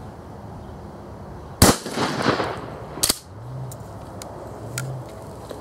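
A 12-gauge shotgun fires a single slug about a second and a half in; the report echoes for about a second. A second, shorter sharp crack follows about a second and a half later, then a few faint clicks.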